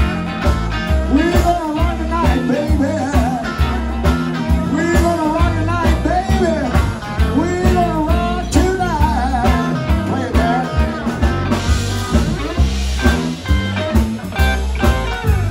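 Live blues band playing an instrumental break: an electric lead guitar soloing with bent notes over electric bass, drums and a second guitar, with a steady beat.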